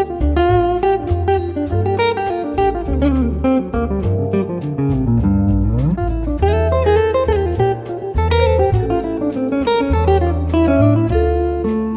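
Background music led by guitar, with a bass line and a steady beat; a sliding note about halfway through.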